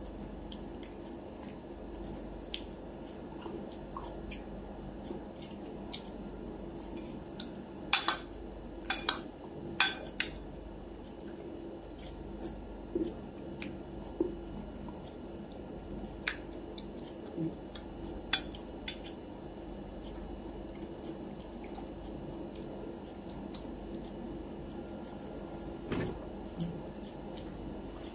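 A metal fork clinking and scraping against a dinner plate while someone eats, with a cluster of sharp clinks about eight to ten seconds in and scattered single clinks later. A faint steady hum runs underneath.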